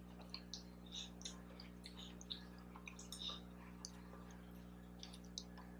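Faint, scattered small clicks and wet mouth noises of someone chewing food close to the microphone, over a low steady hum.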